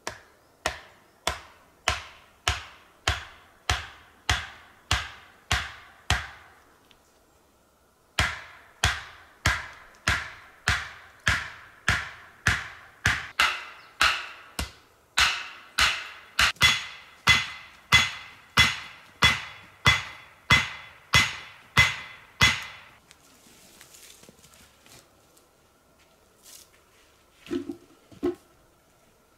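Wooden stake being driven into the ground with steady blows, about one and a half a second. A run of about a dozen, a short pause, then some two dozen more, the later blows with a faint ring. A couple of light knocks near the end.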